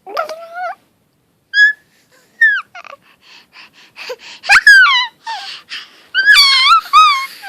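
A baby making high squeaky squeals and chirps that slide down in pitch, with quick runs of clicky pulses between them. The loudest squeals come about four and a half seconds in and again a little over six seconds in.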